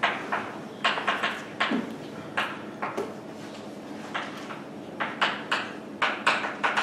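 Writing on a lecture board: an irregular run of short, sharp strokes and taps, a few a second, with a lull in the middle.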